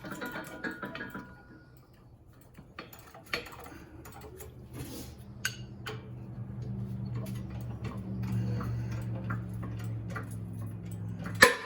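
Irregular metal clinks and taps as steel driver discs and spacers are stacked and set on a shop press for pushing out a wheel bearing. About halfway in, a low steady hum comes in under them.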